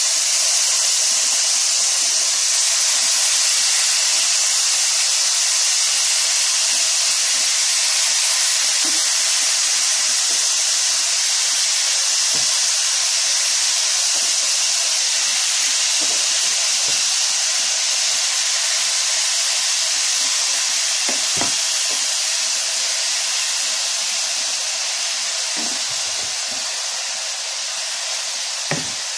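Marinated beef strips sizzling steadily in hot oil in a frying pan as they are added with tongs, with a few light knocks of the tongs. The sizzle eases slightly near the end.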